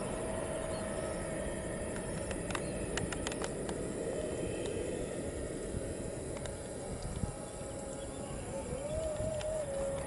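Distant steady rumble of an Airbus A320-216's CFM56 turbofan jet engines as the airliner climbs away after takeoff, with a quick run of clicks about three seconds in.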